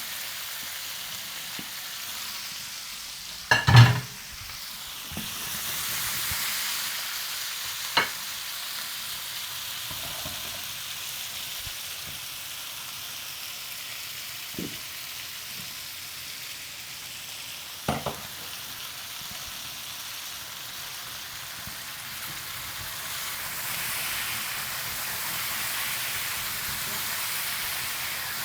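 Chicken and potatoes sizzling steadily in hot fat in a frying pan, with one loud clatter about four seconds in and a few sharp clicks later on.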